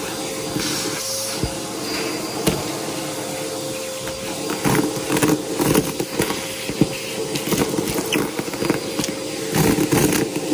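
Aeroswift vacuum cleaner running with a steady motor whine while it sucks up a crunchy debris mix, giving dense, irregular crackling and clicking that grows busier about halfway through.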